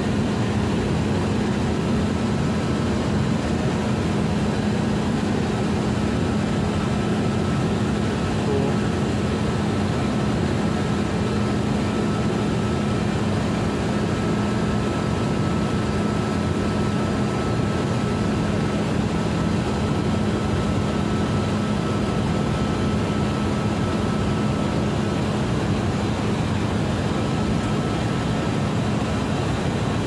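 Steady machinery drone of a chiller plant room, chilled water pumps and their electric motors running, with a constant hum.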